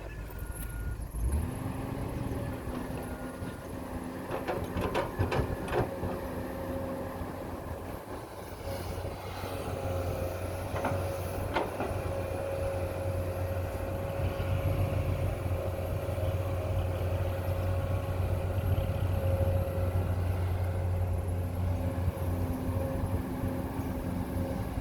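Small electric motors of radio-controlled excavator and dump truck models running with a steady whine that starts and stops, plus a few clicks.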